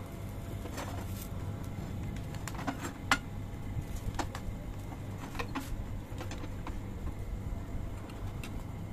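A spatula clicking and scraping against an iron dosa tawa as a stuffed parotta is folded and pressed. About a dozen light, scattered clicks sound over a steady low hum.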